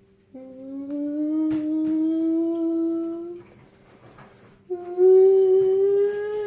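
A voice humming two long held notes, each sliding slowly upward in pitch, the second higher and louder than the first.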